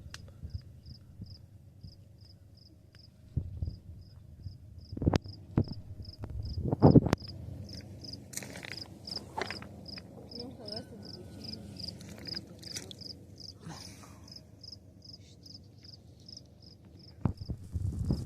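A cricket chirping in a steady run of short high chirps, about three a second, with a few dull knocks, the loudest about seven seconds in.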